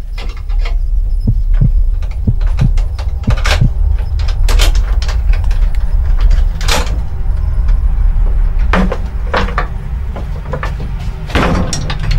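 Film sound design: a loud, steady low rumbling drone with irregular sharp knocks and bangs over it.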